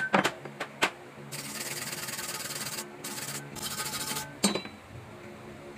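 A few sharp taps, then a wire brush scrubbing a fresh stick-weld bead on steel in three strokes, the long first one the loudest, cleaning off slag; a single sharp knock near the end.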